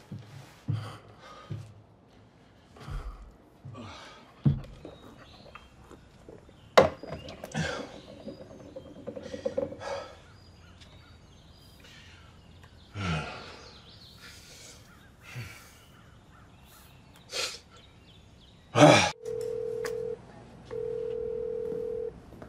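Scattered knocks and rustles, with a loud sharp noise near the end. Then an outgoing phone call's ringing tone begins, a steady beep repeating in pulses about every second and a half.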